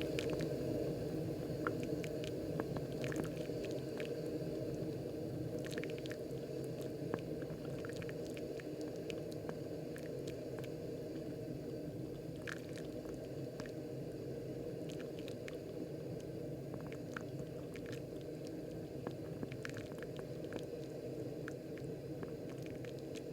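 Moccamaster KBGV Select drip coffee maker brewing: a steady low bubbling rush of hot water being pushed up and sprayed onto the grounds, with scattered small wet pops and crackles from the blooming coffee bed.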